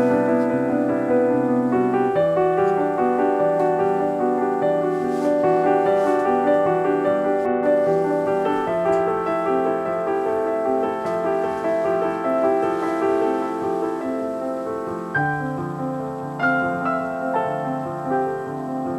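Background piano music, notes and chords changing every second or so.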